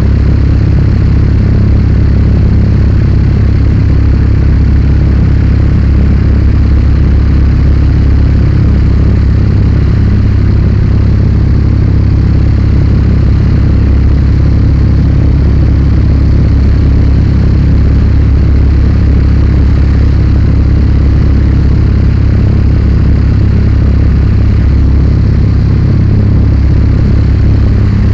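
Loud, steady drone of the Zlin Z 42 light aircraft's piston engine and propeller at constant power in flight, heard from inside the cockpit, deep and even with no changes.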